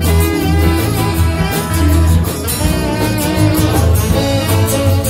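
Live band playing an instrumental stretch with no vocals: electric and acoustic guitars over a steady bass line, with a tambourine keeping time.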